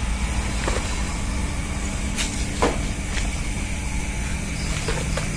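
Dry banana leaves crackling and snapping now and then as they are handled and pulled from the plant for kindling, over a steady low rumble.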